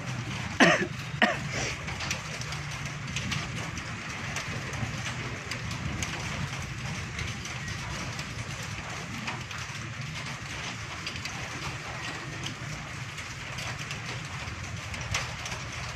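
Steady outdoor rumble and hiss with scattered faint ticks.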